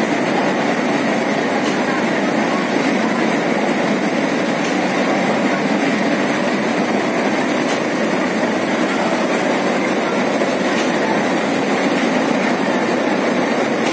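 Tea-factory processing machinery running: a loud, steady, continuous rattling din with faint scattered ticks.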